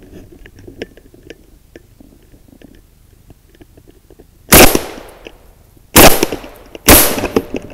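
Three loud gunshots from a Benelli hunting gun fired close to the microphone, the first past the middle, the second about a second and a half later and the third about a second after that, each trailing off in echo. Faint rustling and small clicks come before the shots.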